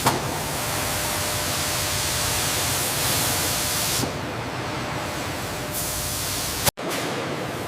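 Steady loud hiss with no tones in it, like spray or rushing air. It changes abruptly about four seconds in and again near the end, where it cuts out for an instant.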